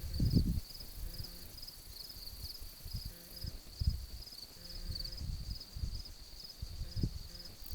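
Insects chirping steadily in a high, pulsing trill, with intermittent low rumbles on the microphone that are loudest at the very start.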